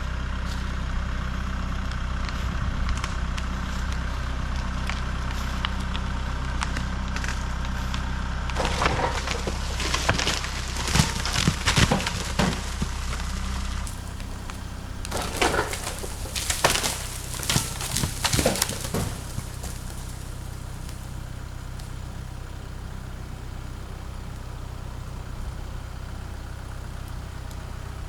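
An engine runs steadily throughout. Twice, for a few seconds each time, wood cracks and splinters in dense runs of sharp cracks, the loudest sounds here: the first a third of the way in, the second just past the middle.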